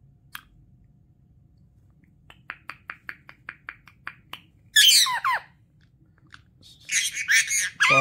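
Pet parakeets squabbling: a quick run of sharp clicks at about five a second, then two loud harsh parakeet squawks about two seconds apart, the first falling in pitch.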